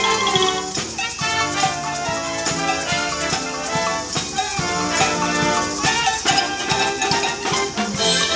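Junior high school wind band playing: brass and saxophones carry the tune over drum kit, bass drum and mallet percussion keeping a steady beat.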